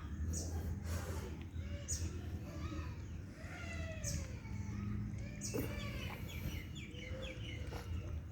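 Kitten making eating noises: short, squeaky chirping sounds with sharp smacking clicks, over a steady low hum.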